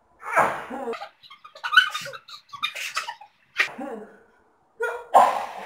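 People sneezing in quick succession, about five sudden loud sneezes, set off by chikni sneezing powder sniffed up the nose.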